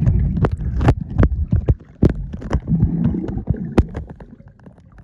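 Water sloshing and gurgling around a phone filming at and under the water's surface, with many irregular sharp clicks and knocks; it grows quieter near the end.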